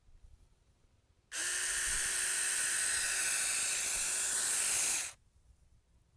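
Saker 4-inch mini cordless 20 V electric chainsaw running: it starts suddenly about a second in, runs at a steady pitch with a high whirring hiss for nearly four seconds, then stops.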